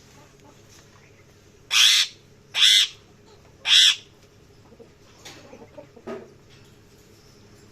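Parrot giving three loud, harsh calls in quick succession, starting a little under two seconds in, followed by a few softer chattering sounds.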